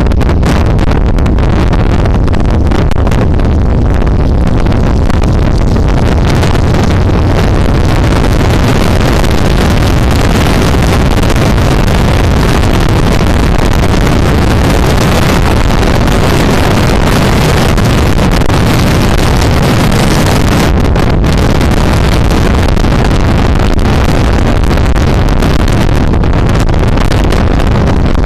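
Loud, steady wind rush buffeting the microphone on a motorcycle at road speed, with the motorcycle's engine and road noise rumbling underneath.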